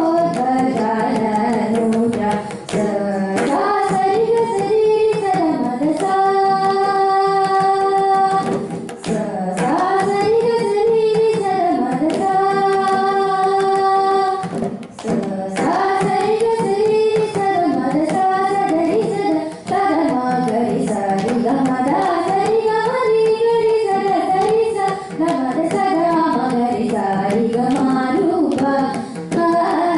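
A girl singing a Carnatic melody with gliding, ornamented notes, two of them held long near the middle, to mridangam strokes.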